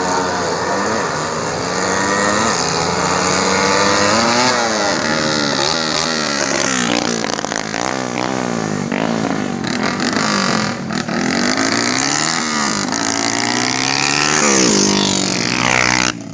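Two drag-racing motorcycles' engines revving hard, their pitch repeatedly climbing and dropping as they rev and shift. The sound cuts off sharply near the end.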